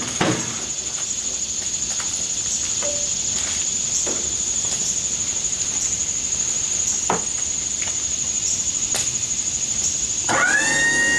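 Steady high-pitched insect buzzing with a slight pulsing warble, with scattered clicks. Near the end a whine rises, holds for about a second and a half and then falls away.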